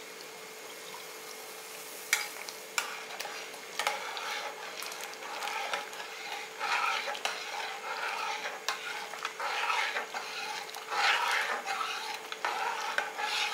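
A metal ladle stirs ground raw rice into boiling water in an aluminium pressure cooker: repeated swishing and sloshing strokes, with the ladle clicking against the pot now and then. A faint steady bubbling hiss is heard before the stirring starts about two seconds in.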